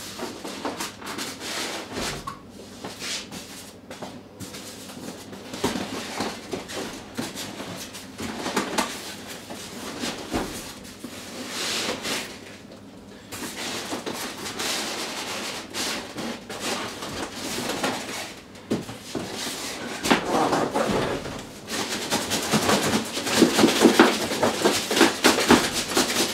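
Cardboard boxes scraping and rustling against each other as a snug inner box is worked up and out of a large outer carton, with scattered knocks. Louder and busier over the last several seconds as the box comes free.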